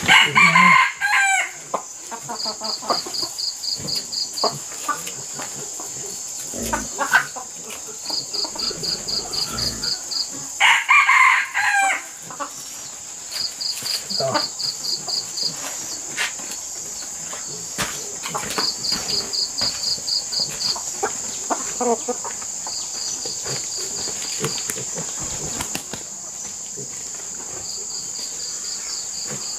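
Rooster crowing twice, about ten seconds apart, over a steady high-pitched insect drone and repeated short trains of rapid insect chirping.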